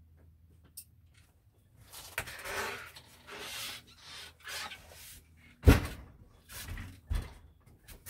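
Bedding rustling and wooden knocks as a slatted wooden bench-bed in a camper van is set up for sleeping. A sharp knock, the loudest sound, comes just before six seconds in, and a second knock about a second and a half later.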